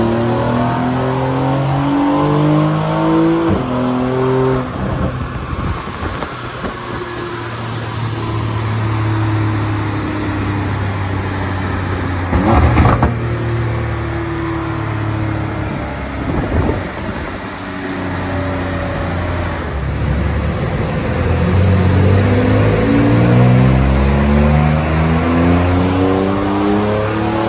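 Porsche 992 Carrera 4S's twin-turbo flat-six with an Akrapovic titanium slip-on exhaust, accelerating hard under load on a chassis dyno: its pitch climbs and drops back at each upshift. A brief sharp crack comes about halfway through, and near the end the engine climbs through the gears again.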